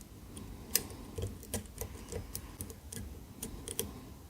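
Light irregular clicks and taps of a flag pick probing the pin stacks of an ABUS EC550 dimple lock held under tension, checking which pin is binding.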